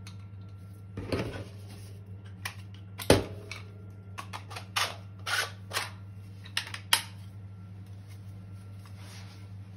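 3D-printed plastic dice pistol and shell being handled: a string of sharp clicks and knocks as the break-open pistol is opened and the shell is loaded, the loudest snap about three seconds in, then stillness from about seven seconds on.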